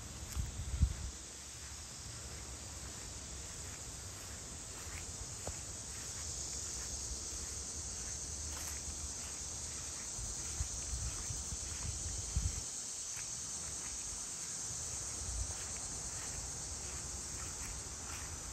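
Steady high-pitched chorus of insects, growing stronger about six seconds in. A few low thumps sound over it, the loudest about a second in.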